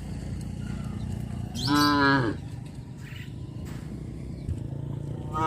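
A cow mooing: one short call about a second and a half in, dropping in pitch at its end, with another moo starting right at the end.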